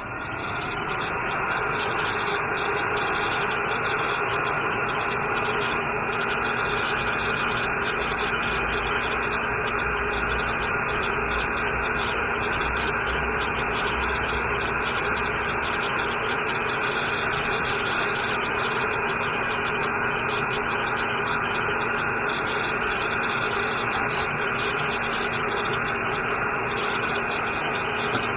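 Hot air rework station blowing: a steady hiss of rushing air with a faint fan hum, spinning up over the first second and a half and then holding steady.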